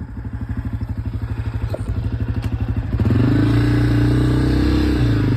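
Motorcycle engine pulling away at low speed with an even putting beat that grows louder, then revving higher and running harder from about three seconds in.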